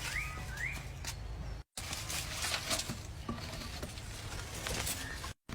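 Outdoor rural ambience with a bird giving two short rising chirps near the start, followed by light scratchy rustling over a steady low rumble. The sound drops out for an instant twice where clips are joined.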